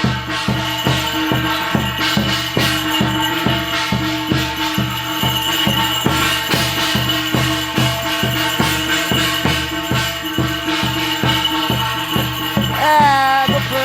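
Korean shamanic ritual music: a drum beaten in an even pulse of about two to three strokes a second under jingling shaman's bells and a steady held tone. Near the end a voice cries out briefly, rising and falling.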